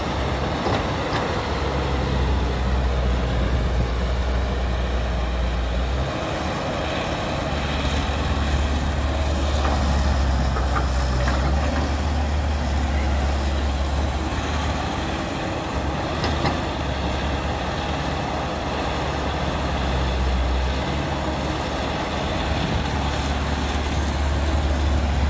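Cat 312B excavator's diesel engine running steadily under load as the machine digs, swings and dumps, the hum dipping briefly twice. About halfway through, a bucket of soil drops into the dump truck's bed.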